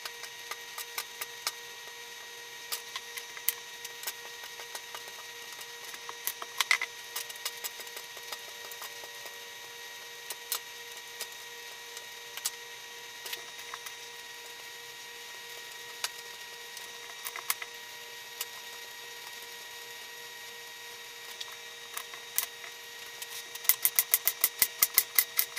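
Kitchen knife cutting cucumbers on the counter: scattered sharp taps of the blade, then a quick run of chops, about four a second, near the end. A faint steady hum underneath.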